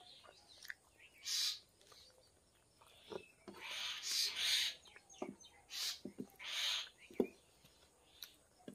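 Close-miked eating sounds: wet sucking and slurping at a curry-coated chicken bone and at fingers, several short hissing sucks of about half a second each, with lip smacks and small mouth clicks between them.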